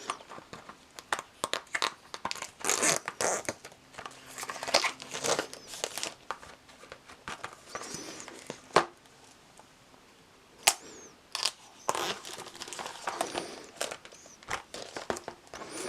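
Knife cutting into a cardboard box and the packaging being torn and pulled open: irregular scraping, tearing and crinkling with sharp clicks and taps.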